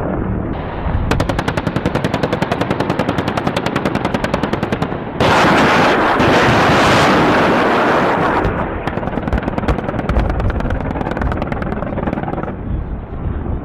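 Attack helicopter firing: a fast, even string of gunfire shots, then a sudden loud rushing roar of rockets launching about five seconds in, then more rapid shots that fade out.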